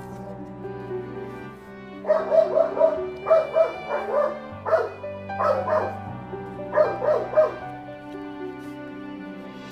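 Soft instrumental background music with sustained chords. From about two seconds in, a small dog barks over it in several quick runs of short, high yaps, which stop shortly before the end.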